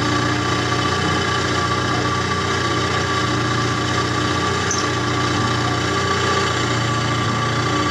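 A steady, unchanging mechanical hum made of a few fixed tones, with no rise or fall in pitch.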